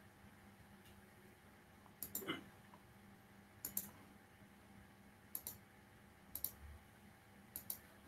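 Quiet clicking at a computer, five short double clicks spread over about six seconds, starting about two seconds in, over a quiet room.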